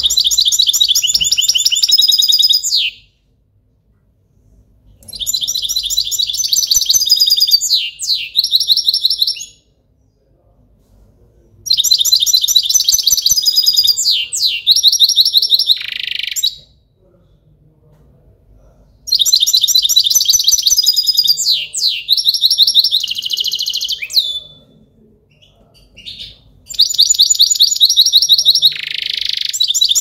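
European goldfinch singing: five bursts of fast, high twittering song, each a few seconds long, with short pauses between them.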